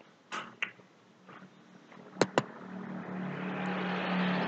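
Two sharp clicks, then a motor vehicle passing. Its engine hum and road noise swell up over a second or so and ease off slightly near the end.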